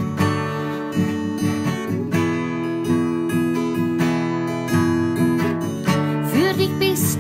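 Instrumental passage of a worship song: acoustic guitar strumming sustained chords, with a singing voice coming in near the end.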